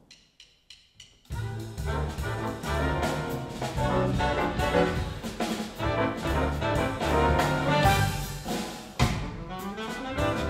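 Jazz big band starts a number: four quick clicks count it in, then saxophones, trumpets, trombones and rhythm section come in together and play loud, with a sharp accent about nine seconds in.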